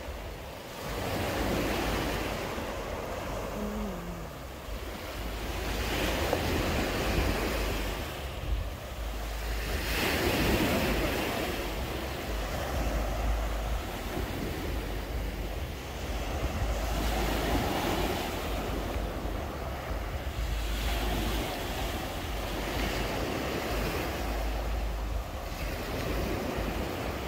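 Sea waves breaking on the shore, surging every few seconds, with wind rumbling on the microphone.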